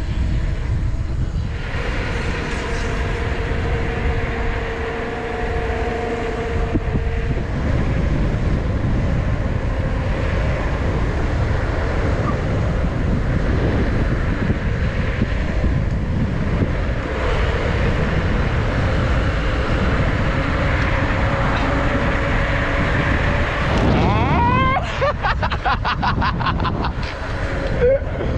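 Heavy wind buffeting the microphone of a camera carried by a rider going down a road, a steady rumble and hiss. Near the end comes a few seconds of rapid, rising, pitched chattering.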